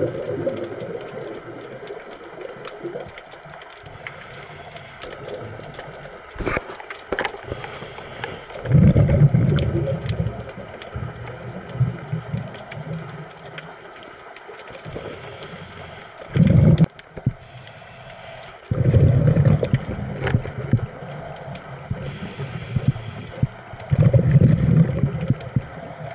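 A scuba diver breathing through a regulator underwater: five hissing inhalations, most followed by a loud bubbling rumble of exhaled air, with a few faint clicks in between.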